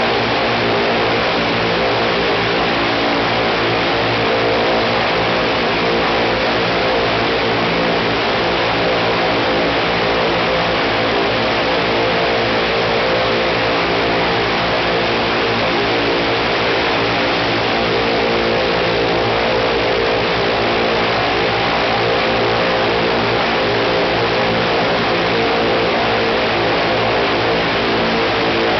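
Shvetsov ASh-82T 14-cylinder twin-row radial engine of an Il-14T running at a steady speed on a ground run, its propeller turning.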